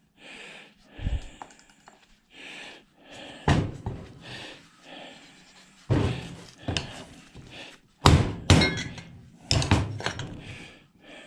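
Several irregular hammer blows on a washing machine motor, pounding a part out of its cast aluminum housing, with handling and scraping noise between the blows.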